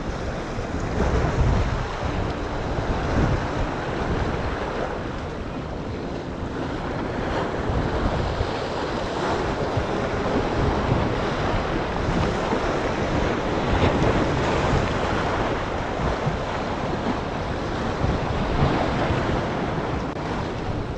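Ocean surf washing against jetty rocks, with wind buffeting the microphone: a steady rushing noise without distinct events.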